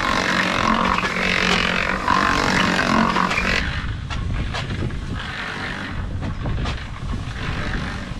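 Electric cement mixer running: a steady motor hum with the hiss of sand tumbling in the drum. About three and a half seconds in, this gives way to a low rumble of wind on the microphone, with a few light knocks and scrapes of sand being scooped and tipped.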